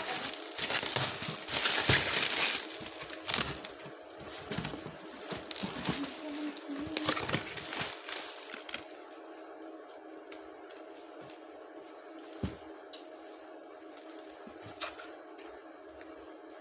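Packaging rustling and crinkling in quick irregular handling noises as a parcel is unpacked, dying down after about eight seconds to a few isolated clicks, over a steady low hum.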